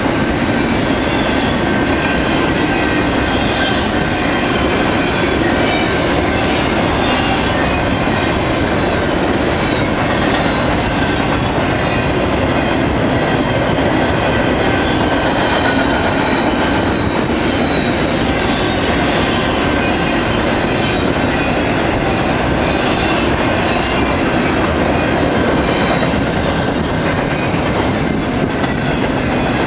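Double-stack intermodal container train's well cars rolling past: loud, steady noise of steel wheels running on the rails.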